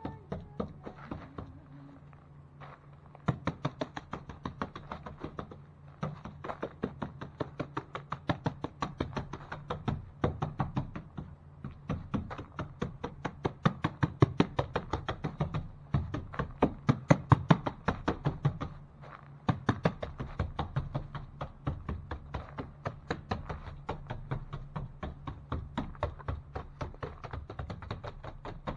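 Stomp texture brush slapped again and again against wet joint compound on new drywall, making quick, even knocks several times a second. The knocks begin about three seconds in and are loudest in the middle, over a steady low hum.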